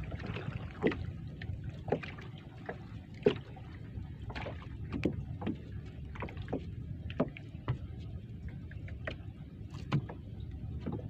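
Irregular knocks and clicks on a small wooden canoe over a steady wash of water against the hull, as a handline is hauled in with a Spanish mackerel on after a strike.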